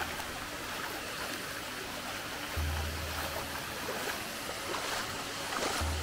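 Steady rush of falling, running water from a jungle waterfall stream, under background music with a low bass note that repeats about every three seconds.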